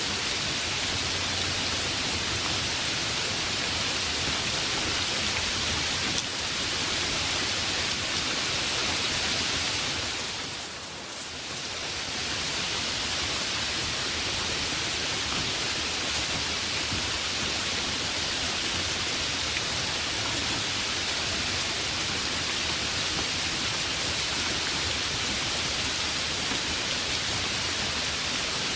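Heavy rain falling in a steady, dense hiss. It dips briefly about eleven seconds in, then comes back.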